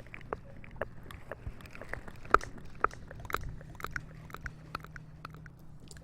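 Close-miked wet mouth clicks and smacks, many short irregular clicks, the two sharpest about two and a half seconds in, over a low steady hum.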